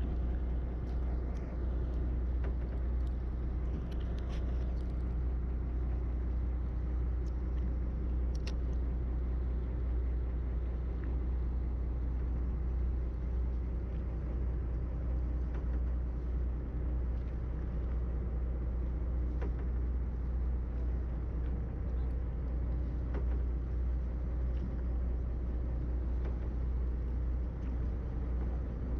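Steady low drone of a fishing boat's engine running, with a few faint clicks now and then.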